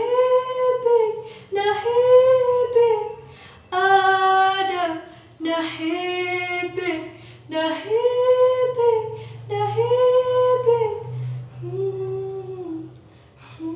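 A young female solo singer vocalising a wordless 'ah' line in about seven long held phrases of one to two seconds each, the pitch bending gently within each phrase.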